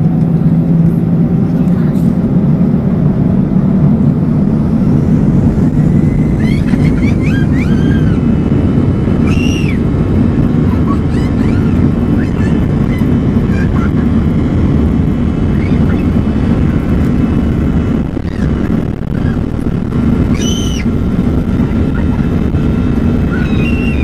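Steady cabin noise of an Airbus A321-211 heard from a seat over the wing, its CFM56-5B turbofan engines running at climb power with a deep, even rumble. A few brief high-pitched chirps rise and fall over it, about a third of the way in and again near the end.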